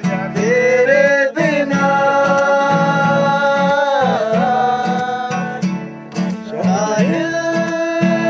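Acoustic guitar strummed in a steady rhythm while a group of men sing along, holding long notes. The singing breaks off briefly about six seconds in, then picks up again.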